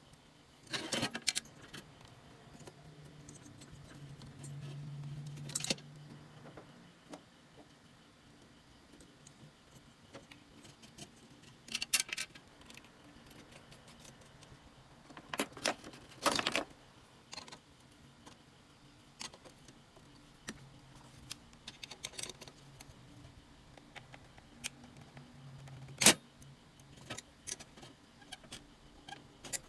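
Scattered metallic clicks and clatter of screws, heatsinks and a circuit board being handled and fitted into a metal chassis. A cordless drill runs briefly, driving a screw, about four seconds in.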